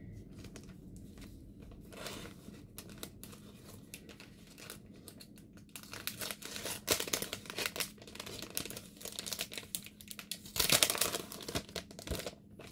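Clear plastic card sleeve crinkling and rustling as it is handled. The crinkling is soft for the first few seconds, then busier from about six seconds in, with the loudest burst about a second before the end.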